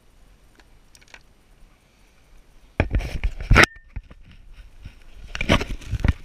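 Handling noise from the action camera being moved and turned by hand: rubbing and knocking on the camera and its mount, in two loud bursts, the first cutting off suddenly about three and a half seconds in, the second starting about five seconds in, with only faint ticks before them.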